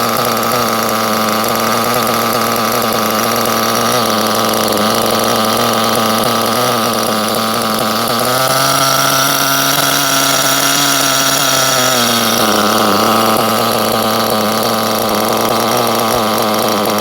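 Small engine idling steadily. About eight seconds in its pitch rises and holds higher for about four seconds, then drops back to idle.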